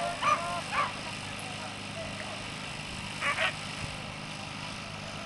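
Afghan hounds yelping and barking in short high-pitched cries, several in the first second and two more about three seconds in: hounds straining at the start of a lure-coursing run.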